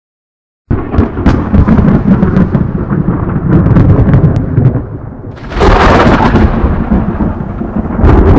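Thunder rumbling, starting abruptly under a second in, with a sharper crash a little past halfway.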